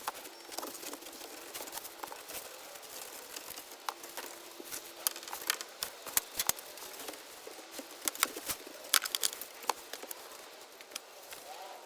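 Hands-on installation handling noises: scattered sharp clicks and crinkling, thickest and loudest in the middle and latter part.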